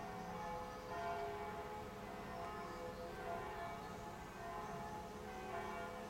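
Church bells ringing, one stroke after another, each tone ringing on into the next.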